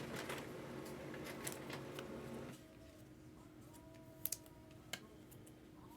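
Scattered sharp clicks and taps over a low steady hum that cuts off about two and a half seconds in; after that, a quieter stretch with a few more sharp clicks, two close together past the middle.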